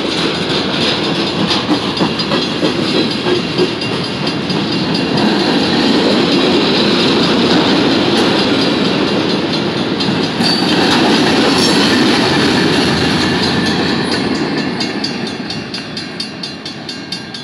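Empty centerbeam flatcars and covered hoppers of a freight train rolling past with steady wheel clatter on the rails. The noise fades near the end as the last car goes by, and a grade-crossing bell rings steadily.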